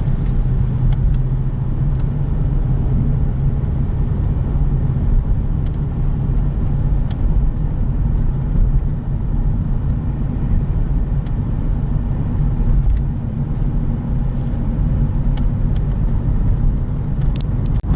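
Steady low rumble of a car driving, with engine and road noise heard from inside the cabin and a few faint ticks.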